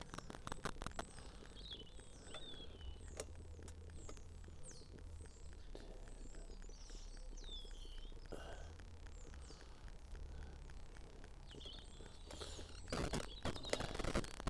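Small birds chirping, many short rising and falling chirps over a low background. Near the end there is a louder clatter of handling at the pan.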